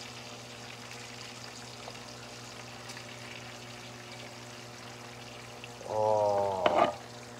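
Bacon frying in a pan: a steady, faint sizzle over a low, steady hum. About six seconds in, a short vocal sound from a man breaks in.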